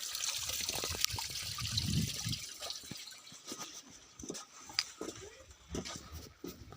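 Water running or pouring in a steady hiss for the first couple of seconds, then thinning out into scattered small clicks and knocks.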